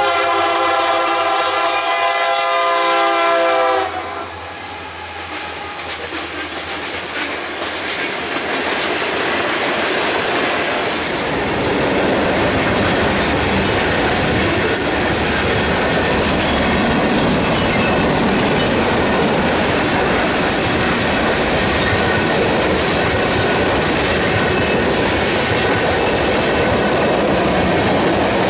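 Freight train led by EMD SD70-series diesel locomotives sounding its air horn in a long blast that cuts off about four seconds in. The train's noise then builds as it reaches the crossing and turns into the steady clatter and clickety-clack of tank cars rolling past.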